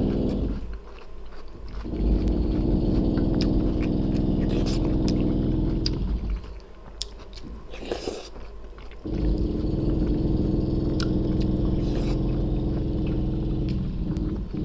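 Machine noise from workers nearby: a steady multi-pitched hum, most likely a power tool, running in two stretches of about four to five seconds each. Close-up chewing and biting of food clicks over it.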